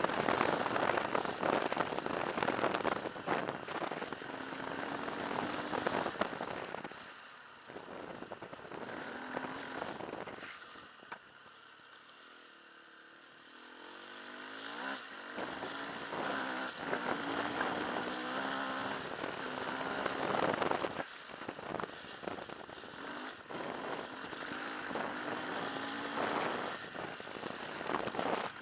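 Off-road motorcycle riding a gravel track, its engine note rising and falling under a noisy rush of wind and tyres on gravel. It eases off and goes quieter about seven seconds in, then picks up again with rising revs about fourteen seconds in.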